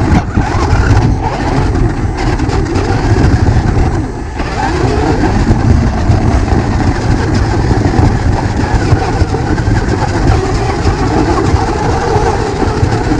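Radio-controlled rock crawler running over rough ground: a steady, dense mechanical noise that dips briefly about four seconds in.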